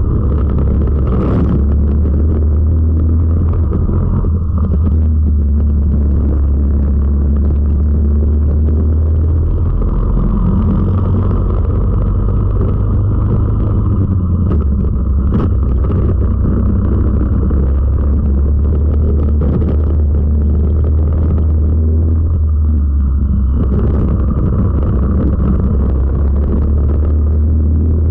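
Four-stroke racing kart engine running hard under load, heard close up from the kart itself, with road and wind noise underneath. The engine note drops and climbs again twice, about a third of the way in and near the end, as the kart slows for corners and accelerates out.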